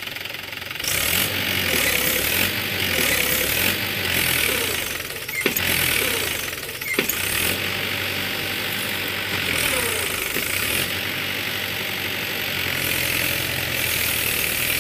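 Mahindra tractor's diesel engine working under load as it hauls a trailer full of soil, rising in level about a second in and changing pitch as the throttle varies. Two sharp knocks come about halfway through.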